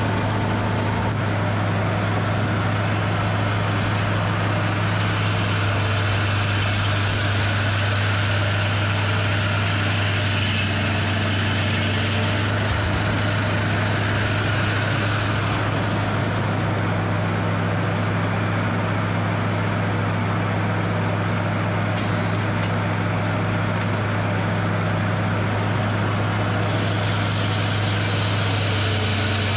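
Hydraulic sawmill's engine running steadily at a constant speed, a strong low hum, with a rougher hiss above it that rises and falls every several seconds.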